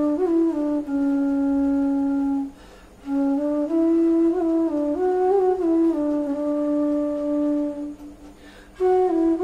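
Bass bansuri (bamboo flute) in D playing a slow phrase of long held low notes around D4, with small steps and slides between them. It breaks off twice for a breath, about two and a half seconds in and again near the end.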